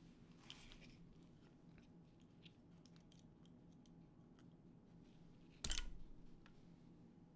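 Faint scattered ticks and clicks of small parts and tools being handled on a desk, over a low steady hum, with one sharper knock about three-quarters of the way through.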